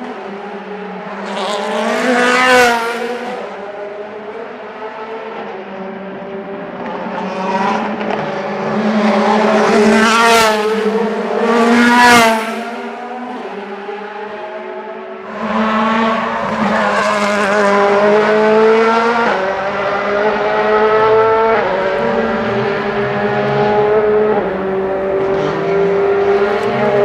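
DTM touring cars' 4.0-litre V8 engines running at low revs, the cars passing close by one after another, loudest about two, ten and twelve seconds in. From about halfway an engine holds nearby, its pitch shifting in steps.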